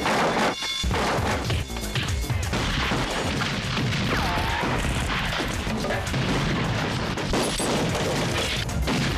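Film shootout soundtrack: rapid, repeated gunshots and crashing impacts, with music underneath.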